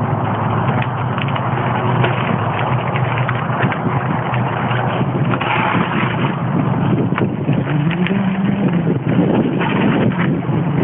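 Mountain bike riding over a gravel trail, picked up by a phone taped to the frame: a constant rumble full of small knocks and rattles, with wind buffeting the microphone.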